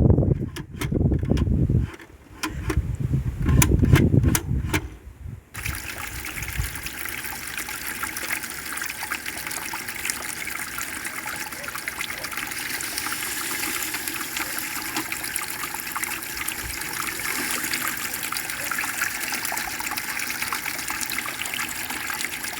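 Toilet fitted with a dual flush valve: loud low rushing with a few clicks for about the first five seconds. It then changes abruptly to a steady hiss of water running as the tank refills.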